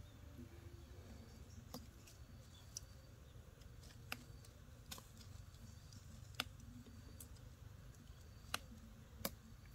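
Near silence over a low steady rumble, broken by about seven faint, sharp clicks at irregular intervals.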